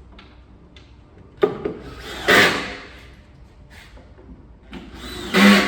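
Assembly noise from fitting a shelf into a van racking unit: a knock about a second and a half in, then two short bursts of scraping noise, the second near the end.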